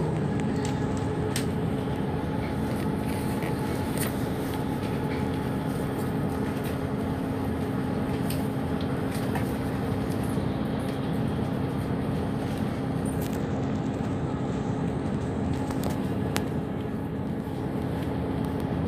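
Cabin noise inside a moving bus cruising steadily: an even rush of engine and road noise with a steady hum and a few faint scattered rattles.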